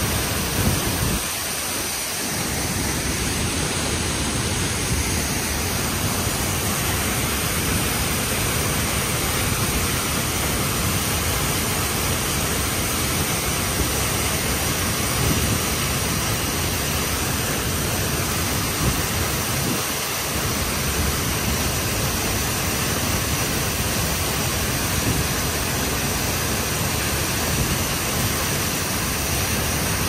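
Waterfall plunging into a rocky plunge pool, heard close up: a steady, loud rush of falling and splashing water.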